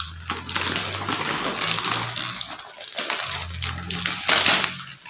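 Gift wrapping and packaging rustling and crinkling as a present is torn open and its contents pulled out, in a run of irregular crackles.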